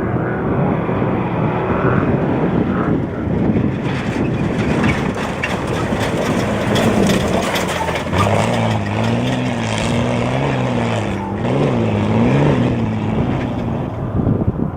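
Off-road race truck engine running hard over a steady rush of wind and road noise; about halfway through, its note wavers up and down as the revs rise and fall.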